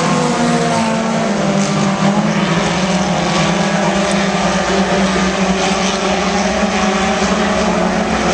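Several front-wheel-drive race cars racing on a dirt oval, their engines running together as a steady, loud drone of several overlapping engine notes.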